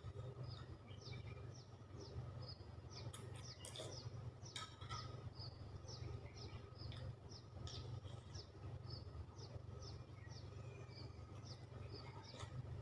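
A small bird chirping over and over, short high chirps that drop in pitch, about two a second, faint over a steady low hum. A few light clicks come about three to five seconds in.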